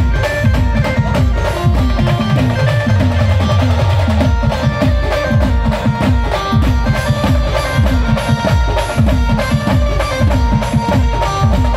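Instrumental passage of a band playing a Marathi devotional song: loud driving drums with a steady fast beat under held melody notes.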